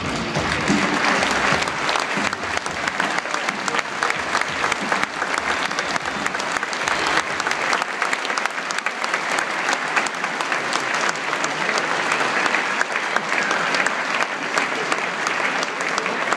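A large audience clapping steadily, with no break, with some voices mixed in.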